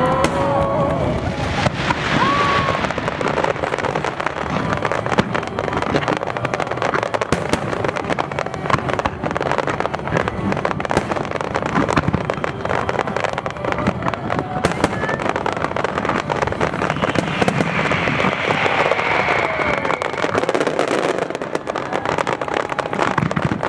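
Aerial fireworks display: many shells bursting and crackling in rapid succession, with no pause.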